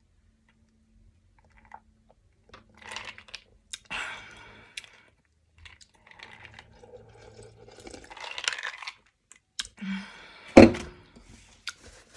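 Close-miked chewing of McDonald's breakfast food, with crackly, crunchy mouth and food noises coming in clusters from a couple of seconds in. One sharp, loud knock about ten and a half seconds in.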